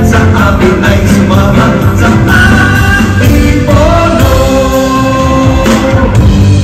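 Live band performance: male vocalists singing held notes over drums and guitar.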